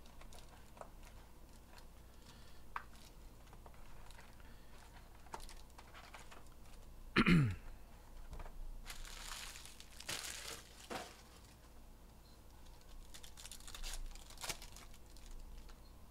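Hands opening a cardboard trading-card hobby box and pulling out its packs: plastic wrapping and cardboard crinkling and tearing, with small clicks of handling. About seven seconds in, a short sound slides sharply down in pitch, the loudest moment.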